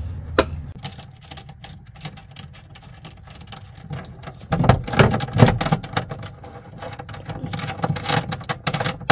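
Socket ratchet clicking in short runs while a bolt on the battery tray is turned, with a few louder knocks about halfway through.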